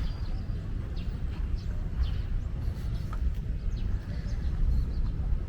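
Small birds giving scattered short, high chirps over a steady low rumble.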